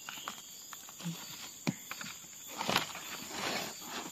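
Dry leaf litter and low forest plants rustling and crackling as they are handled and brushed by, in a few short crackles, the loudest a little under three seconds in.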